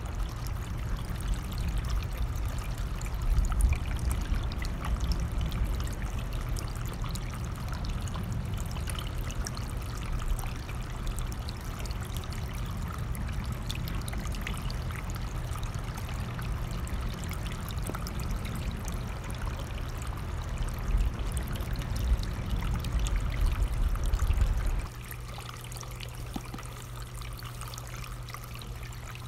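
A running stream flowing steadily, with a low rumble underneath that drops away abruptly about 25 seconds in.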